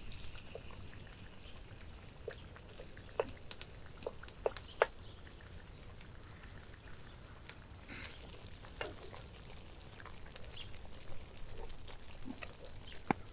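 Thick tomato and cheese sauce simmering in a cast iron pan, with scattered sharp pops and clicks over a low bubbling hiss.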